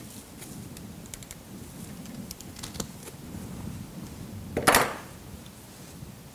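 Bonsai training wire being wound by hand around a Japanese white pine branch: faint, scattered clicks and scrapes of wire on bark, with one louder, brief rustle about four and a half seconds in.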